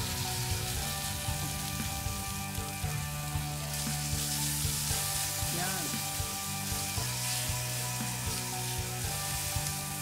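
Raw chicken breast searing in hot oil on a flat metal griddle, a steady sizzle that grows louder about four seconds in.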